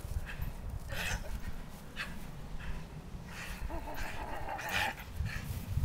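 Dog tugging on a rope toy, breathing hard in short noisy huffs about once a second over a low rumble.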